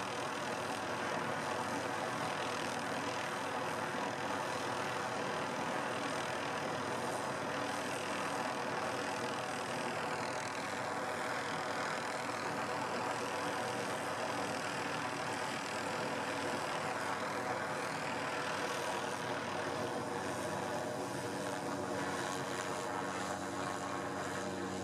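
Helicopter hovering overhead, its rotor and engine giving a steady drone whose tone shifts slowly now and then as it holds position over the line.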